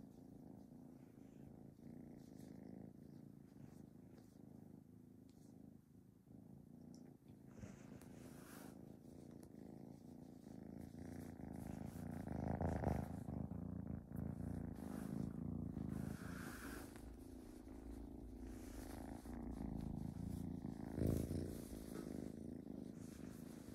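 Kitten purring steadily, close to the microphone, growing louder about halfway through. A few brief rustles and bumps of hands and bedding come through.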